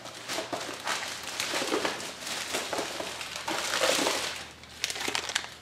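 Plastic packaging of computer parts crinkling and rustling as it is handled, in irregular crackles.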